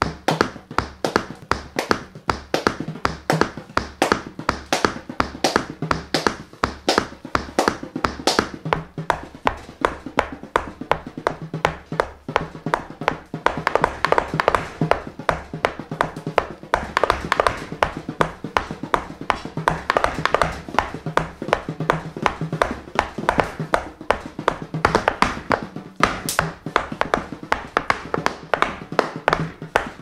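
Tap shoes striking a wooden board in a fast, steady run of taps, several a second, as a tap dance.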